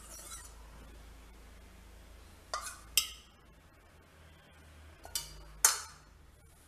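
Steel kitchenware clinking: two pairs of short, sharp clinks a couple of seconds apart, the second pair the loudest.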